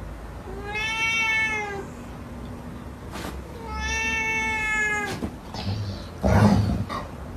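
Domestic cat giving two long, drawn-out meows at a dog, each rising then falling in pitch. Then comes a short, loud, rough noisy burst about six seconds in.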